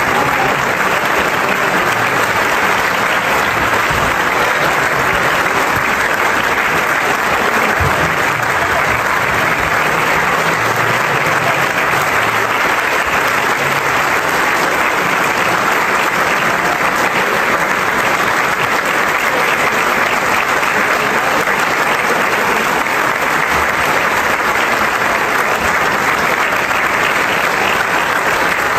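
Sustained applause from a large audience in a legislative chamber, steady and unbroken throughout.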